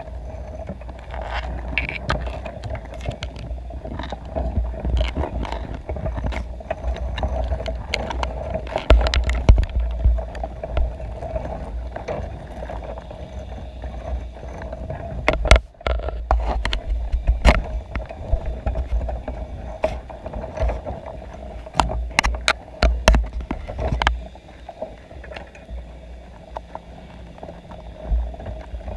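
Underwater, heard through a camera's waterproof housing inside a crab pot: a low rumble with a steady hum, and scattered sharp clicks and knocks from crabs crawling over the pot and camera. The clicks bunch up about halfway through and again a few seconds later.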